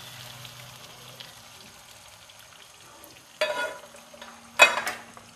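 Oil sizzling faintly in a wok of fried stuffed pointed gourds, then two short spatula scrapes against the wok about a second apart, near the end, the second louder.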